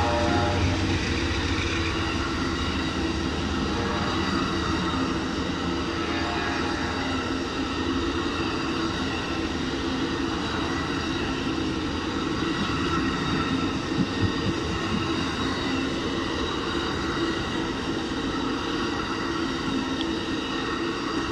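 Amtrak Auto Train's Superliner bilevel passenger cars rolling past at speed: a steady rumble and hiss of wheels on rail, with two brief knocks about 14 seconds in.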